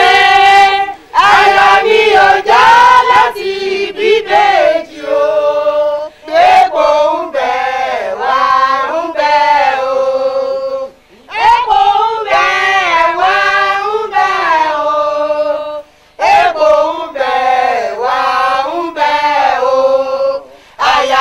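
A group of men and women singing together in phrases with short breaks between them.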